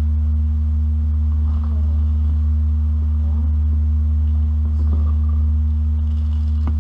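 A steady low hum, with faint crinkling and light knocks of a plastic bag and cardboard packaging being handled.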